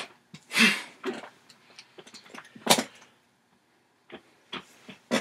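A man's short breathy exhales, one about half a second in and a sharper one nearly three seconds in, followed by a few faint clicks and rustles near the end.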